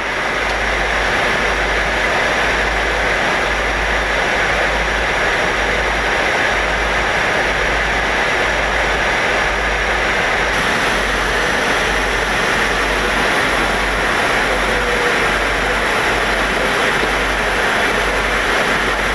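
Steady rushing noise of an Airbus A300-600 in flight, with a low rumble underneath and no change throughout.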